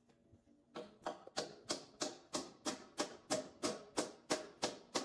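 Steady hammering, about three sharp blows a second, each with a short metallic ring. It starts about a second in.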